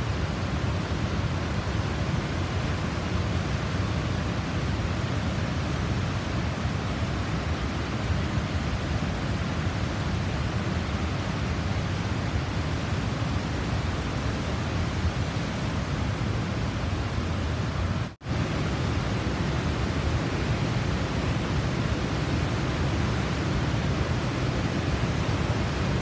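Steady rush of a large Mekong waterfall and its whitewater rapids, a dense, deep, even noise. The sound drops out for an instant about eighteen seconds in.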